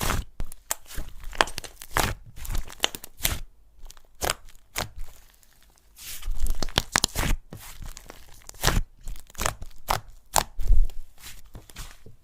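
Slime being kneaded and pressed by hand, giving irregular sticky crackles and pops, with a short lull about four seconds in.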